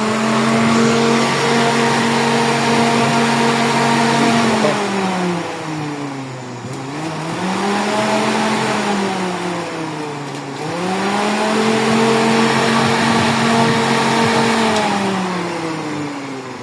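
Replacement radiator cooling fan motor, a large high-speed Toyota Vios unit, being test-run. It spins up to a steady whine and winds down about five seconds in. It speeds up briefly and slows again, then spins up once more, runs steady and winds down near the end.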